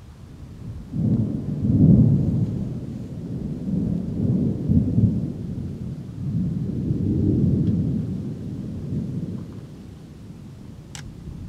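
Rolling thunder: a long, low rumble that swells about a second in, rises and falls through several peaks, and dies away near the end.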